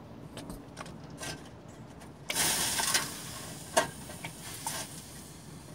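Water squirted from a spray bottle onto the torch-heated, rusted exhaust flange stud, hissing for about a second as it hits the hot metal and flashes to steam: a heat-and-quench to break the rust. A few sharp clicks follow.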